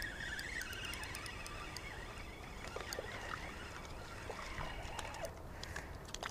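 Spinning reel being cranked to bring in a hooked stocked trout at the shore, with faint scattered clicks and light splashing.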